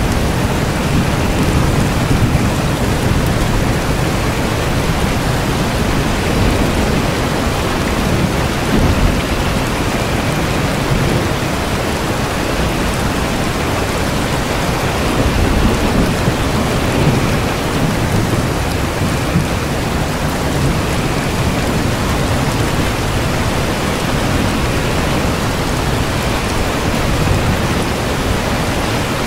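Steady rain falling as an even hiss, with a deep low rumble of thunder swelling and easing underneath.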